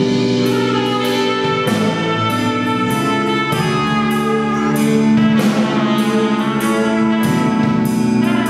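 A live band playing a Christmas carol: sustained chords that change about every two seconds over a steady beat of drum hits.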